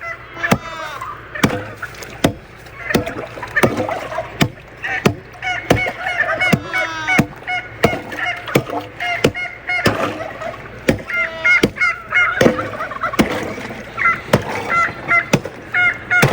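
Geese honking and calling over and over, with a string of sharp knocks or clicks about one or two a second throughout.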